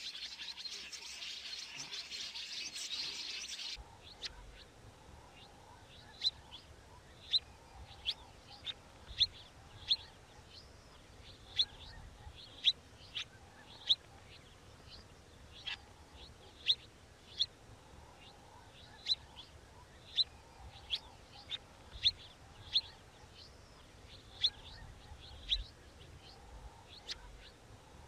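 Songbirds calling. A dense, high chatter of many birds cuts off abruptly a few seconds in, and then a bird's short, sharp chirps follow, repeated irregularly about once or twice a second.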